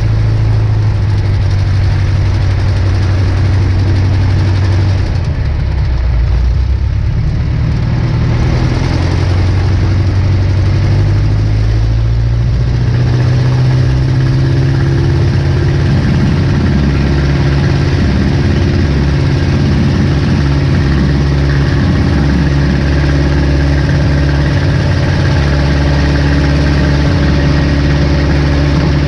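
A 1947 Aeronca Champ's small four-cylinder piston engine and propeller running at low power as the plane taxis on grass. The engine note steps up a little about twelve seconds in and holds steady after that.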